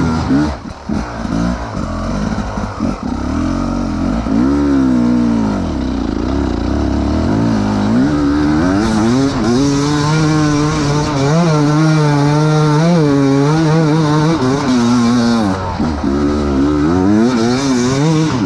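Enduro dirt bike engine revving up and down under load on a climb, the revs rising about halfway through and held high for several seconds, then dropping briefly and picking up again near the end.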